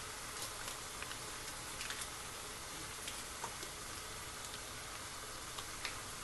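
Minced pork sizzling gently in a frying pan: a steady soft hiss with scattered small pops and crackles.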